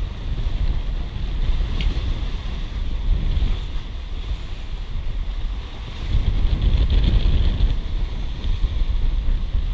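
Wind buffeting the microphone over the rush and splash of water along the hull of a sailboat under sail, swelling louder for a couple of seconds past the middle.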